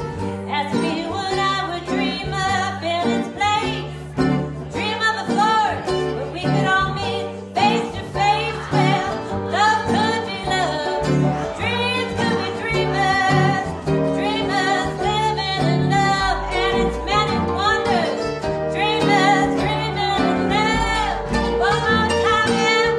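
Live band music: a woman singing over guitars.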